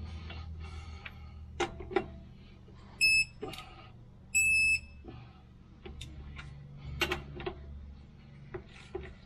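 Electronic torque wrench beeping twice, a short beep about three seconds in and a slightly longer one just over a second later, signalling that its set torque of 92 ft-lb is reached on the flywheel bolts. Sharp metallic clicks of the socket and wrench on the bolts come between the beeps.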